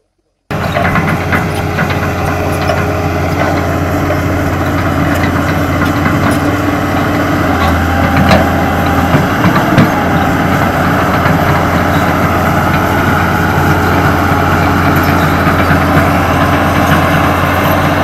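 Hitachi Zaxis 200 excavator's diesel engine running steadily with a deep, even hum, cutting in suddenly about half a second in. A few brief louder knocks come around the middle.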